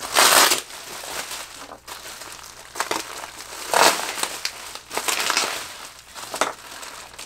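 Plastic packing wrap crinkling and rustling in several separate bursts as a wrapped package is pulled open by hand; the loudest burst comes right at the start.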